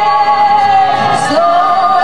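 A woman singing a Sardinian folk song live over a PA, holding long notes, with piano accordion accompaniment; her line steps up to a higher note about one and a half seconds in.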